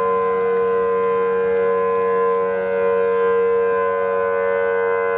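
Outdoor warning sirens, among them a Federal Signal Thunderbolt, sounding a steady alert tone during a test, holding several pitches at once without change.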